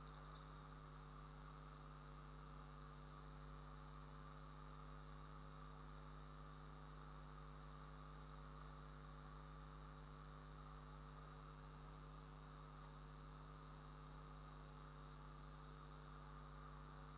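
Near silence: a steady, faint electrical mains hum on the recording.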